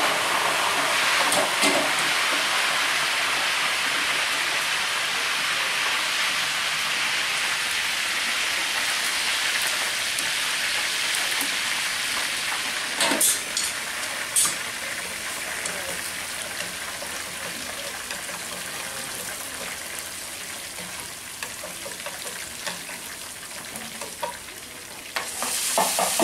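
Hot oil sizzling steadily in pans on gas burners, with two sharp clacks about a second apart midway. Near the end the sizzle jumps louder as minced meat is tipped into a pan of hot oil.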